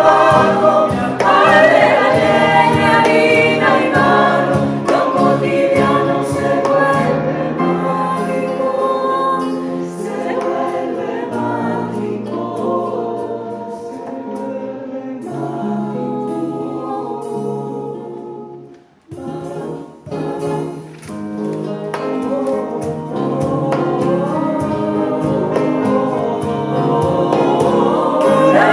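Choir singing in harmony, holding sustained chords. The voices break off briefly about two-thirds of the way through, then come back in and build up again near the end.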